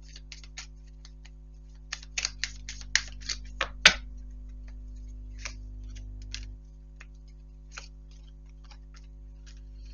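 Tarot cards being handled and laid down on a table: a run of light clicks and snaps, thickest between about two and four seconds in with the sharpest snap near four seconds, then a few scattered clicks. A faint steady hum runs underneath.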